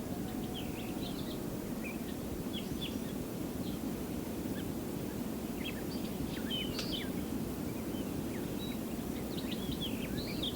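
Birds chirping in many short, scattered calls over a steady low background hiss and rumble.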